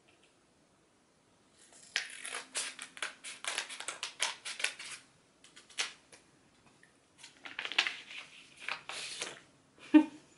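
Scissors snipping open a small paperback's wrapping, with the wrapping crinkling and rustling in irregular bursts as it is cut and pulled off. A single sharp knock near the end is the loudest sound.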